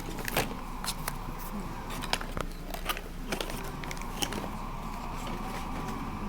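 Kinder Surprise egg wrapping and plastic toy capsule being handled: a run of sharp, irregular clicks and crinkles, over the steady hum of a moving train.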